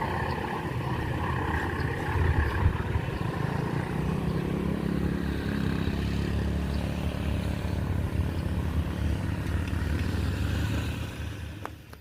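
A passing vehicle makes a steady rumble, which dies away near the end.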